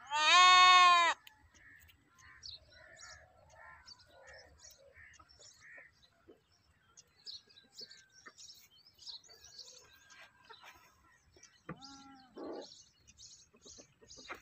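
Goat bleating: one loud bleat at the start and a quieter, shorter bleat about twelve seconds in, with faint chirps between.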